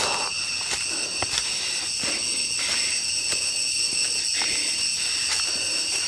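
Cicadas buzzing in a steady chorus at several high pitches at once, with footsteps on the forest trail now and then.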